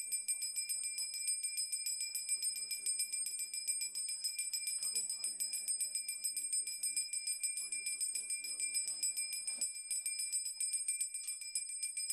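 Hand-held puja bell rung rapidly and continuously, giving a steady high ringing with fast, even strokes. Under it, a man's voice chants prayers in phrases that stop and start.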